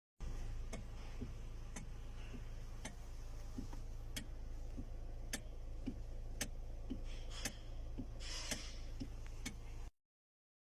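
Hyundai i30 steering clicking about twice a second over a steady low hum, the sign of a stuck flexible rubber bushing in the steering.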